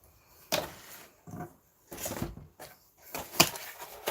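A string of short rustles and knocks from packaging and a bottle being handled, with one sharper knock about three and a half seconds in.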